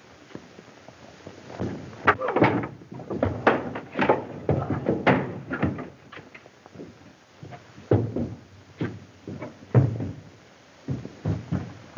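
A long run of irregular knocks and thumps, many in quick succession, starting about two seconds in and easing off near the end.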